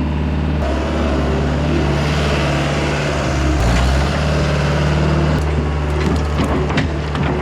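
CAT 242B skid steer's diesel engine running steadily while it works dirt. The engine note shifts briefly about halfway through, and a few knocks come near the end.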